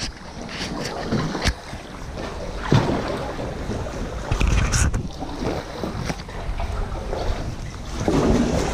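Kayak paddle strokes splashing and dripping in canal water, with irregular louder surges, and wind buffeting the microphone.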